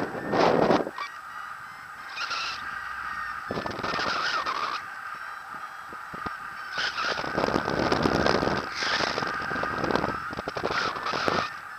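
Airflow buffeting the camera's microphone in paraglider flight, gusting in and out several times, over a steady high tone.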